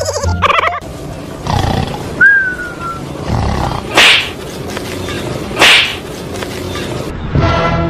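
Two loud, roar-like cries about a second and a half apart, over a steady rustling noise, with a short falling whistle a couple of seconds in.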